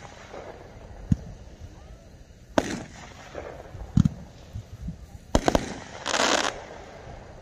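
A multi-shot consumer fireworks cake firing: several sharp bangs from shots and their bursts, spaced roughly a second and a half apart. About six seconds in there is a short crackle of glittering stars.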